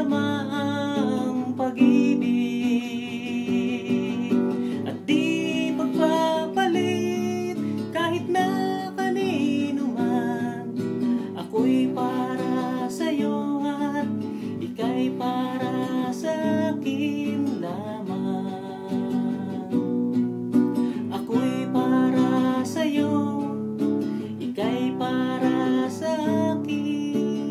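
Classical guitar strummed as accompaniment, with a man singing along, wavering on held notes.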